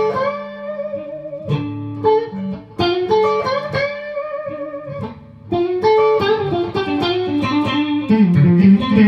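Clean electric guitar, a Squier Stratocaster through a Mesa Boogie Mark Five:25 amp, played through a diode-bridge compressor pedal: short phrases of sustained, ringing notes with brief gaps, moving to lower, quicker notes near the end. The tone is evenly compressed.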